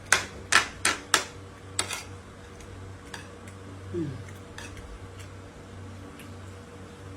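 Cutlery clinking on dishes: five sharp clinks within the first two seconds, then fainter scattered ticks. A brief falling sound comes about four seconds in.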